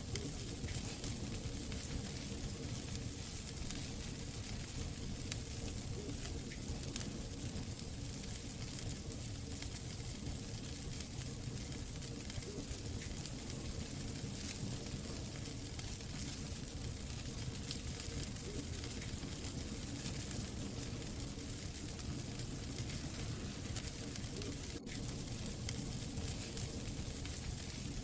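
Wood fire burning in a brick fireplace: a steady hiss with a dense patter of small crackles and pops, a couple of them sharper a few seconds in. There is a momentary dropout near the end.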